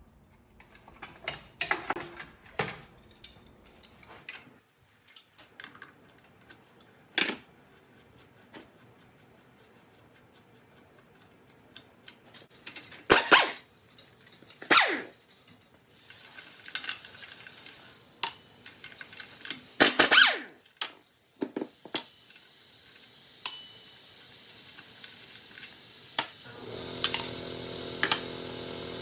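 Scattered metallic clinks and knocks of hand tools and parts being handled. An even hiss comes in about halfway through, and a steady hum joins it near the end.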